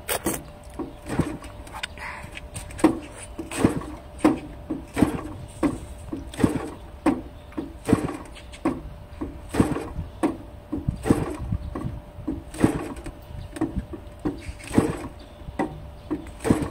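The engine of an Extra 300 RC model aeroplane being turned over by hand with the choke closed, a short chuff at each turn, about one a second, without firing.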